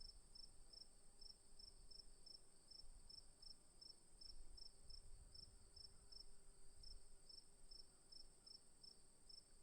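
Crickets singing, faint: one high, unbroken trill with another cricket chirping steadily about three times a second.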